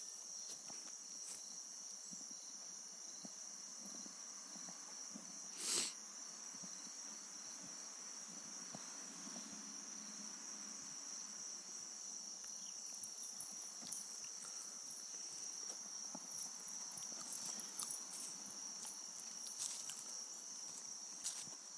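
Steady high-pitched insect chorus, like crickets, with scattered soft clicks and one louder thump about six seconds in.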